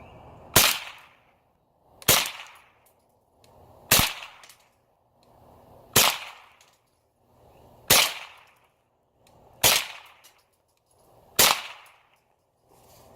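Seven shots from a Mossberg 702 Plinkster semi-automatic .22 LR rifle firing CCI Stinger hollow-point rounds, each a sharp crack, evenly spaced about two seconds apart.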